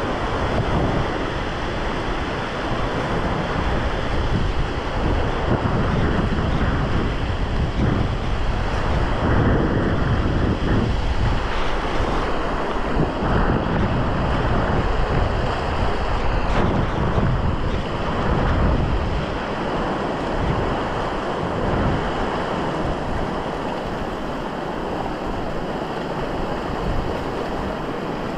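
Fast river rapids rushing steadily past the bank, with wind buffeting the microphone in uneven gusts.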